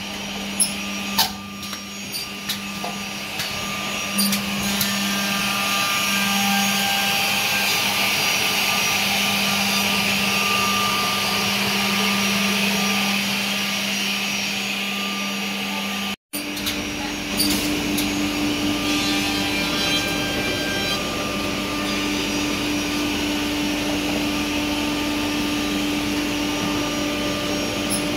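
Edge banding machine running steadily with a hum and a hiss, with a few sharp knocks in the first seconds. After a brief break about halfway, the hum continues at a higher pitch.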